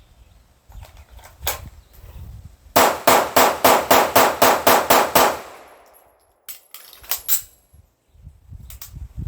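Sig Sauer P226 pistol fired in one rapid string of about ten shots, roughly four a second, until the gun runs dry, with an echo trailing off after the last shot. About a second later comes a quick run of sharp metallic clicks from the pistol being reloaded.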